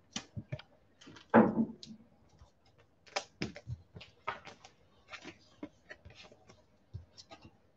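Trading cards being handled: an irregular run of short clicks and taps as cards are slid, set down and picked up, with one louder brief rustle about a second and a half in.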